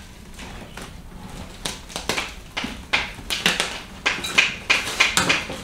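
Cardboard box in plastic wrap being worked up out of a wooden crate: irregular knocks and scrapes against the wooden slats, with crackling wrap, several a second and busier toward the end.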